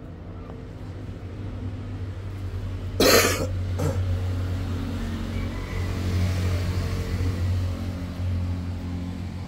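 A steady low motor hum throughout, with a short loud noise about three seconds in and a smaller one just after.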